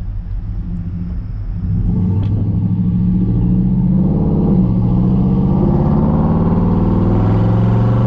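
Pickup truck's engine pulling away and accelerating, heard from inside the cab; it gets louder and its pitch rises about two seconds in, then runs on steadily at speed.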